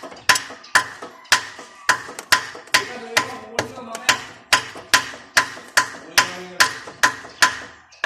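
Hammering: about twenty sharp blows a little over two a second, each with a short ring, in a slightly uneven rhythm.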